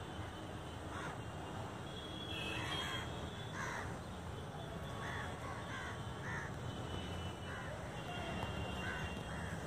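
Crows cawing repeatedly, a string of short caws spread through, over a steady low rumble of background noise.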